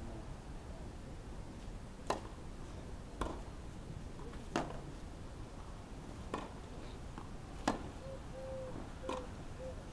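Tennis ball struck by racquets during a rally: six sharp pops a second or so apart, louder and softer by turns as the near and far players hit.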